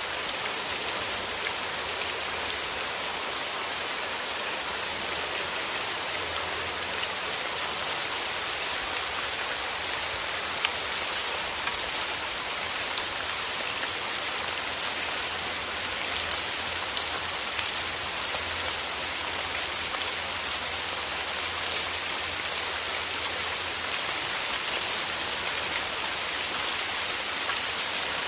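Steady rain: an even hiss of falling rain with scattered sharper ticks of individual drops.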